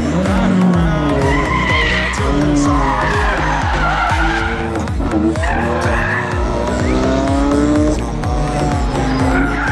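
Ford Sierra Cosworth rally car's turbocharged four-cylinder engine revving hard through a hairpin, the revs rising and falling several times with gear changes, with tyres squealing at moments, over a steady music beat.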